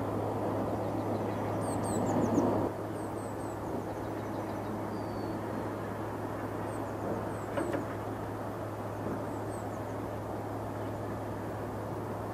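Steady distant rumble of airport and jet noise with a constant low hum. It is louder for the first two and a half seconds, then drops suddenly. Small birds chirp briefly now and then.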